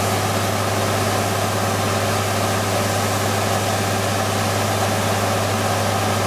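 Truck-mounted water well drilling rig running steadily, a constant engine drone with a strong low hum.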